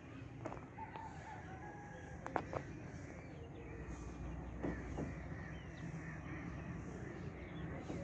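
A rooster crowing at a distance, with other bird calls, over a steady low rumble of open air. A few sharp knocks cut in; the loudest comes about two and a half seconds in.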